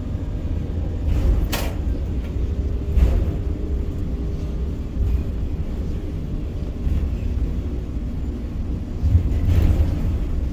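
Container crane machinery running as a low steady rumble while hoisting and trolleying a 40 ft container, heard from inside the operator's cab. Sharp clicks or knocks come about one and a half seconds and three seconds in, and again near the end.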